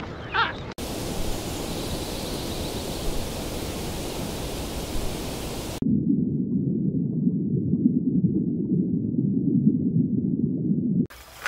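A short king penguin call right at the start, then a steady hiss of water noise; a little before halfway it changes to a muffled low underwater rumble.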